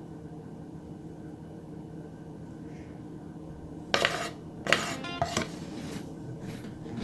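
Metal kitchenware clattering: a run of sharp knocks, some with a brief ring, starting about four seconds in, over a steady low kitchen hum.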